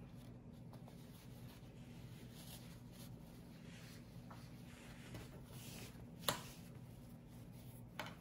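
Faint rustling of cotton fabric strips being pulled through rug loops and handled, over a low steady hum. A sharp click about six seconds in, and a smaller one near the end.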